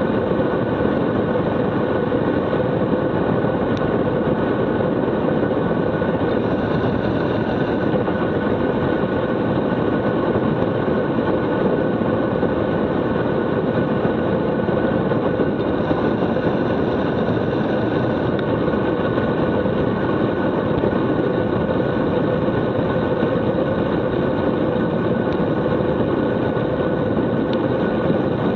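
Steady wind rushing over a Garmin VIRB action camera's microphone as a road bike descends a mountain highway at speed, with a couple of steady tones running through it.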